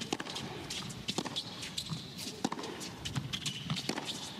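Tennis rally: sharp strikes of racket on ball, about one a second or so, with tennis shoes squeaking on the hard court as the players move.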